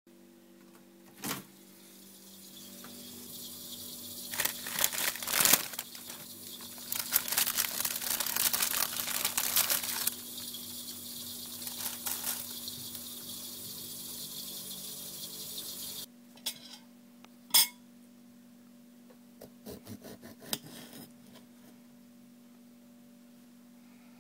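Handling noises as food is prepared: long rustling, like a plastic bag being handled, and scattered clicks and clinks of a plate and cutlery, over a steady low electrical hum.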